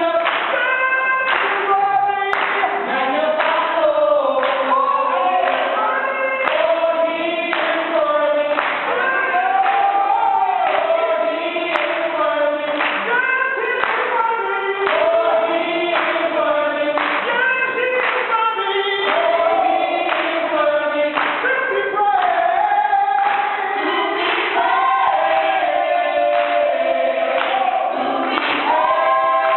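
Church worship group singing a worship song, several voices together with musical accompaniment.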